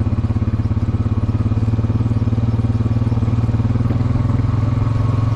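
Quad bike engine running steadily at low speed, an even pulsing drone.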